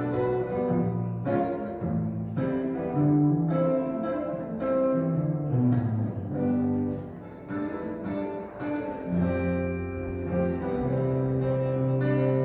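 Slow instrumental music on a clean electric guitar: single held notes that change about every half second to a second, over low sustained bass tones.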